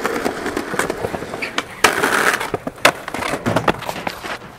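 Skateboard rolling on a concrete sidewalk: steady wheel noise with clicks over the slab joints and several sharp board knocks, the loudest about two and three seconds in. Near the end the rider loses the board and falls.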